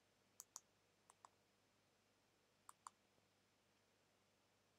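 Near silence broken by faint clicks of TV remote control buttons being pressed, in three quick pairs.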